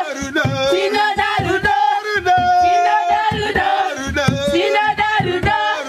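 Several voices singing together, backed by a wooden hand drum beaten in a steady rhythm.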